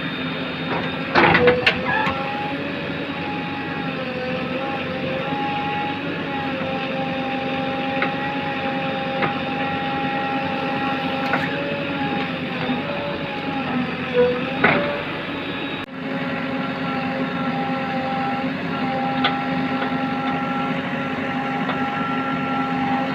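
JCB backhoe loader's diesel engine running steadily under working load, its pitch dipping and recovering a little, with sharp metallic clanks about a second in and again about two-thirds of the way through.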